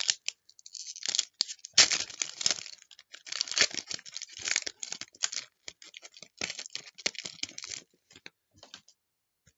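A sealed trading card pack's wrapper being torn and crinkled open with difficulty, in irregular crackling, tearing bursts that stop near the end.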